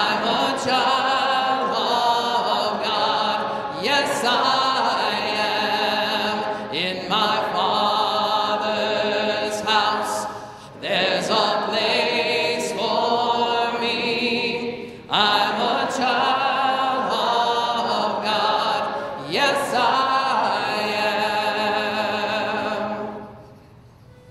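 Congregation singing a hymn a cappella in several parts, phrase by phrase with short breaks for breath; near the end the singing stops.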